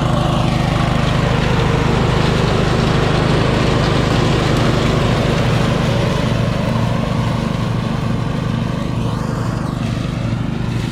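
Husqvarna LT130 ride-on lawn mower running steadily as it cuts grass and drives past, a little louder in the first half and easing off later.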